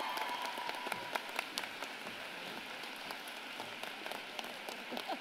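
Large audience applauding, many hands clapping at once, slowly easing off.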